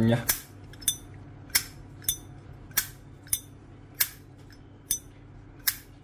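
Zippo 1935 Replica lighter's lid flicked open and snapped shut again and again: about nine sharp metallic clicks, half a second to a second apart. The click is not a pleasing one, which the seller thinks could be due to the lighter's three-barrel hinge sitting outside the case.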